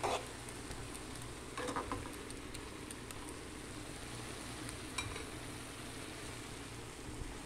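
Rice noodles and vegetables sizzling steadily in an aluminium pot, with a metal spoon scraping against the pot at the start and again briefly about two seconds in, and a single light click near five seconds.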